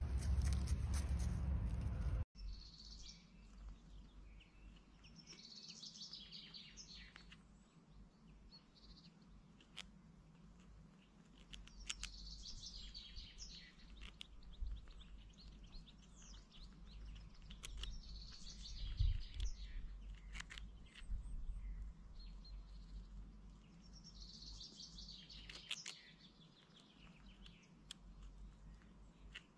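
Small songbirds chirping in bursts every few seconds over a low steady hiss, with a few scattered sharp clicks. It opens with about two seconds of louder rumbling noise that cuts off abruptly.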